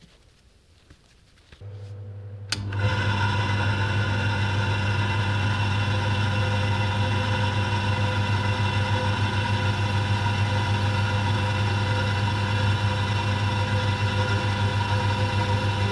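A motor-driven wooden edge burnisher spins with a leather belt loop's edge pressed against it to burnish the edge. It starts with a click about two and a half seconds in and runs as a loud, steady hum with a fast flutter.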